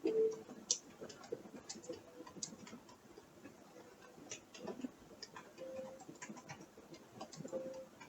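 Irregular creaking: scattered sharp clicks and ticks, several a second, with a few short squeaks, the loudest right at the start.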